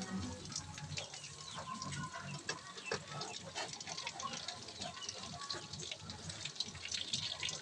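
Small-shrimp (alamang) fritters frying in hot oil in a pan, sizzling with a dense run of crackles and pops.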